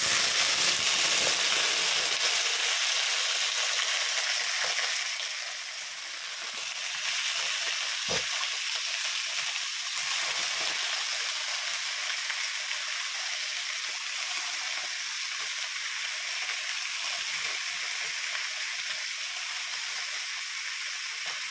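Shredded cabbage and green vegetables dropped into hot oil in a steel kadhai, sizzling loudly the instant they go in, then frying on with a steady sizzle that dips briefly around six seconds in. A single knock about eight seconds in.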